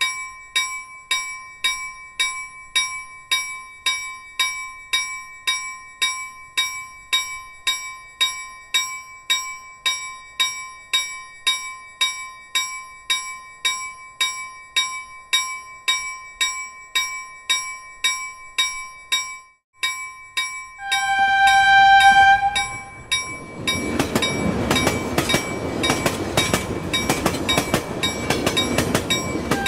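An electronic chime dinging about twice a second on the same two steady pitches for some twenty seconds. It stops, a different sustained chime sounds, and a loud clattering, rushing noise takes over for the last several seconds.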